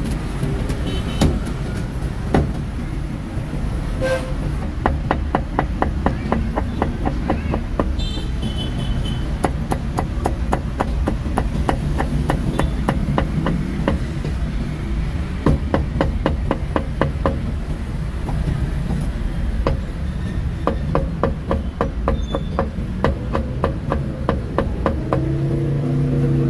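Heavy meat cleaver chopping roast crispy pork belly and BBQ pork on a wooden chopping block: rapid, even knocks of the blade on the wood, several a second, over a steady low background din.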